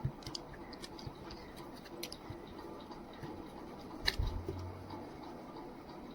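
Scattered light clicks and scratching, with a louder knock about four seconds in followed by a brief low hum.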